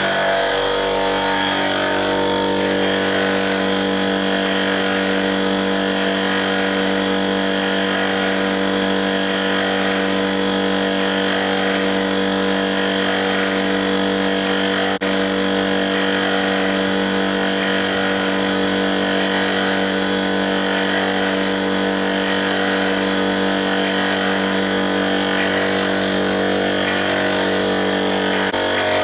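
Air compressor running steadily to feed a spray gun spraying finish onto a wooden tabletop: an even machine hum with a hiss over it, which shifts just before the end.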